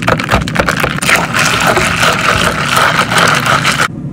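Ice cubes clinking and the drink sloshing as it is stirred with a straw in a stainless-steel tumbler, a rapid run of clicks that stops abruptly near the end. A steady low hum runs underneath.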